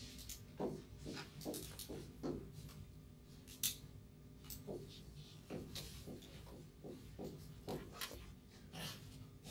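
Dry-erase marker drawn across a whiteboard in short, irregular strokes with pauses between, over a faint steady room hum.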